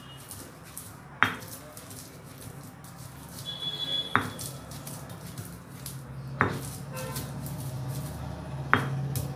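Stone pestle pounding roasted peanuts in a stone mortar: four sharp knocks about two seconds apart, with the crackle of peanuts being crushed and ground between the strokes.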